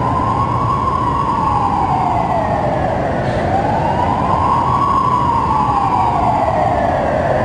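Siren wailing: its pitch rises and falls slowly, about four seconds per cycle, twice over.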